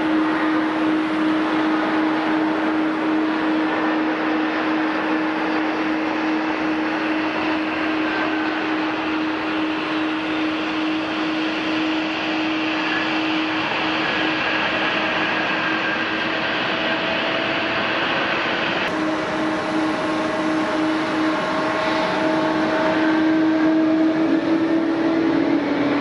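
Jet airliner engines running steadily, a constant roar with a strong low hum and fainter whining tones that drift slowly in pitch. The sound changes abruptly about nineteen seconds in and swells slightly near the end.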